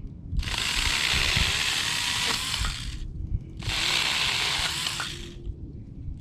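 Stihl GTA26 battery-powered mini chainsaw running in two bursts, the first about two and a half seconds long and the second just under two, its chain cutting through a branch.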